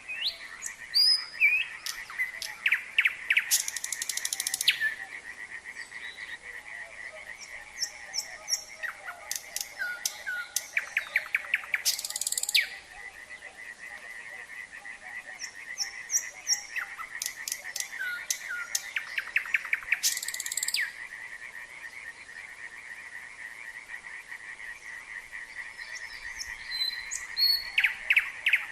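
A nightingale singing in separate phrases of clear whistles, fast repeated notes and harsh rattles, with pauses of a few seconds between them, over a steady trilling chorus of frogs.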